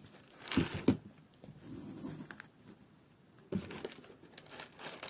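Tepojal (pumice gravel) clicking and crunching as the stones are settled into a small plastic pot, in a few scattered bursts about half a second in and again around three and a half seconds in.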